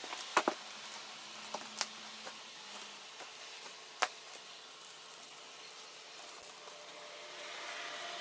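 Steady faint background hiss with a few sharp clicks or taps: two close together near the start, one about two seconds in and a sharper one about four seconds in.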